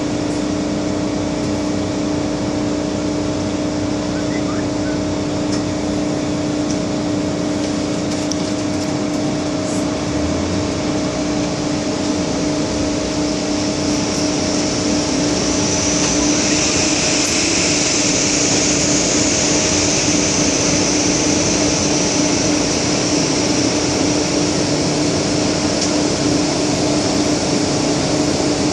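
Steady interior hum of an MTR Kwun Tong Line M-Train, with a constant low tone from the train's running equipment and ventilation. A higher hiss swells in the second half and then eases.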